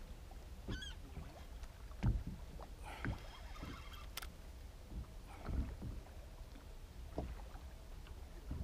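Small boat rocking on calm lake water: a low steady rumble of water against the hull with a few soft knocks, and a brief high-pitched sound about a second in.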